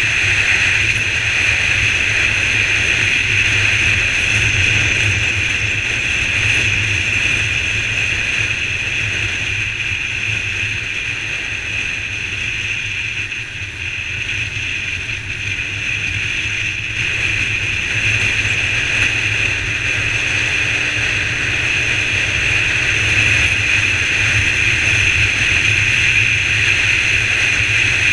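Steady wind rush over a motorcycle-mounted microphone, with a Honda CBR125 single-cylinder engine running at road speed. It eases a little about halfway through and then builds again.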